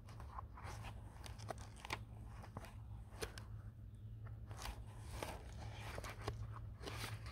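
Faint, irregular crackles and clicks of handling and rubbing close to the microphone, over a steady low hum.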